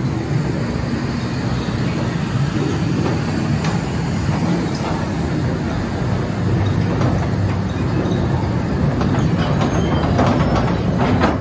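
Ride-through mine train rolling along its track: a steady rumble of the cars, with a few clicks and clacks of the wheels on the rails toward the end.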